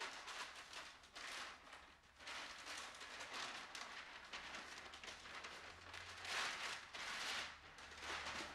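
Wrapping rustling and crackling in irregular swells as it is pulled off a framed portrait by hand.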